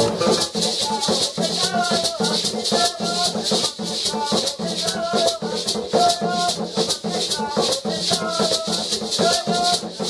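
A pair of gourd maracas shaken in a fast, steady rhythm, about four strokes a second, over hand drums played by hand, in a Colombian Caribbean folk drum-and-maraca groove.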